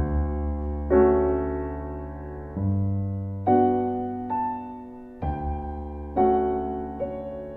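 Slow, gentle solo piano music: soft chords and single notes struck about once a second or two, each left to ring and fade.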